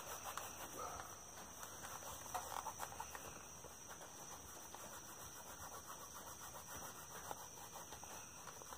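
Faint rubbing and scuffing of shirt fabric against a dyed leather knife sheath as excess polishing wax is wiped off it.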